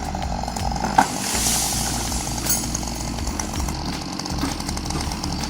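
Chainsaw running as it cuts wood, with a sharp knock about a second in.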